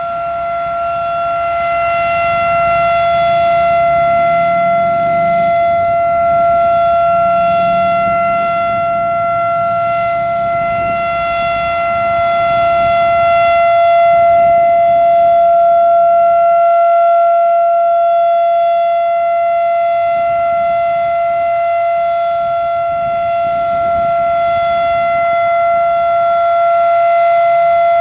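Federal Signal Thunderbeam RSH-10 outdoor warning siren sounding its steady alert tone, one held pitch with no rise or fall. The loudness swells and fades slowly, about every ten seconds, as the rotating siren head sweeps past.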